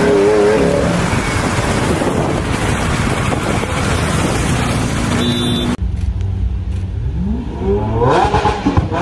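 Lamborghini Aventador's V12 running loud on a street, over road and traffic noise. It cuts off suddenly about six seconds in; near the end a car engine revs up, its pitch rising.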